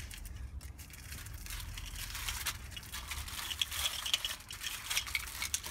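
Thin plastic bag crinkling and rustling in the hands, in irregular crackles that grow busier in the second half, over a steady low rumble.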